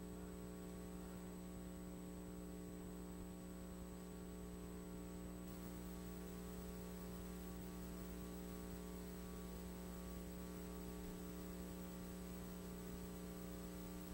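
Steady electrical mains hum with a buzz of many overtones, unchanging throughout, with nothing else heard.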